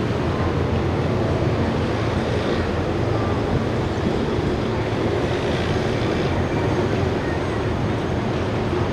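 Boeing Jetfoil 929-115 hydrofoil's gas-turbine waterjet propulsion running, a steady mechanical drone with a low hum.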